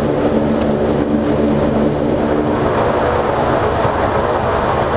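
Cockpit noise of a Beechcraft King Air C90SE's twin Pratt & Whitney PT6A turboprops and propellers at low power on the landing rollout. A steady hum of tones fades about two seconds in, leaving a loud, even rumble and rush.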